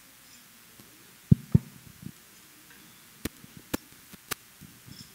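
Microphone handling noise: two dull thumps, then a few sharp clicks, as a faulty speaker's microphone is handled and checked.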